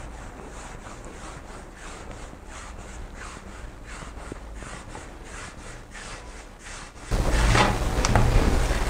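Hands rolling simit dough into a rope on a marble countertop: a soft rhythmic rubbing, about three strokes a second. About seven seconds in, the sound jumps abruptly louder, with a rushing noise and low hum under the strokes.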